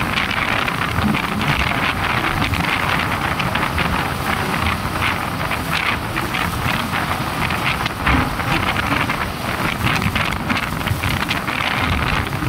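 Wind rushing and buffeting over the microphone of a moving motorcycle, a steady loud noise with engine and road noise underneath.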